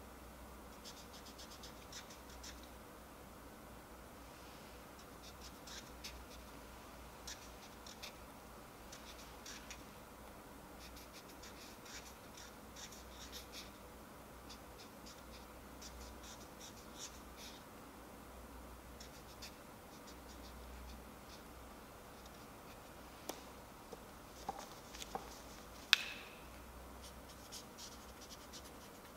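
Felt-tip marker scratching across a small hard ball in quick clusters of short strokes as characters are written on it. Near the end, a few light knocks and then one sharp click.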